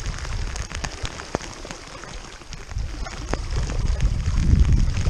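Rain pattering on the river and on the camera, with many sharp drop ticks, over a low rumble that swells near the end. Water splashes around fins kicking a small pontoon boat along.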